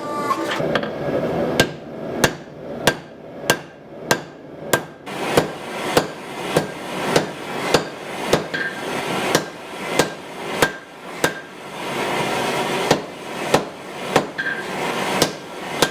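Steady rhythmic hammer blows on hot steel over an anvil, forging out a Damascus knife bar and its tang, a little under two strikes a second with a brief metallic ring on each. The hammering begins about a second and a half in.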